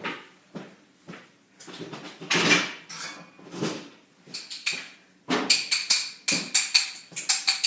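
Metal hand tools clinking and clattering as someone rummages through them, with a quick run of bright ringing clinks in the last couple of seconds.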